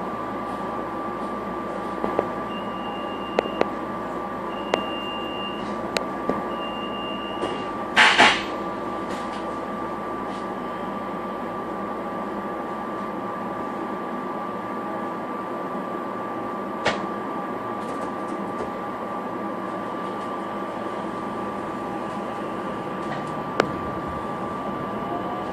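Inside a SEPTA Silverliner V electric train: steady electrical hum with a constant high whine. Three short high beeps come a couple of seconds apart, with scattered clicks, and a short, loud hiss about eight seconds in.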